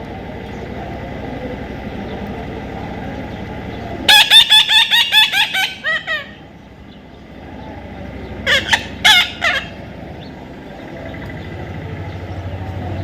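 Parrot calling: a quick run of about ten loud, harsh squawks about four seconds in, then a shorter burst of three or four calls a few seconds later.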